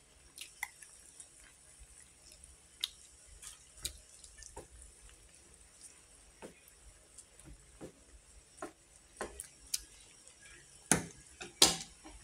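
Noodle broth simmering in an aluminium pot, with irregular small pops and plops from the bubbling liquid. Two louder knocks come near the end.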